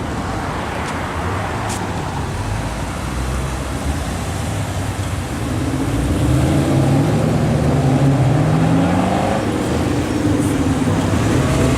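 Cars driving past with engines running. About halfway in, one engine gets louder and climbs in pitch as it accelerates, with a break near the end, like a gear change.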